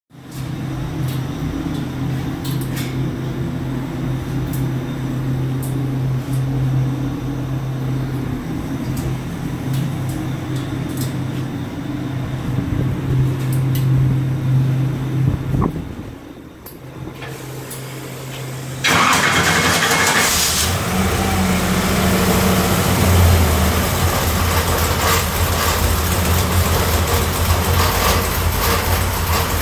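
Twin-turbo 427 cubic-inch LS V8 idling steadily with a deep, even tone. It dips for a couple of seconds past the middle, then about two thirds of the way in turns suddenly louder, with much more hiss over a heavier low running sound.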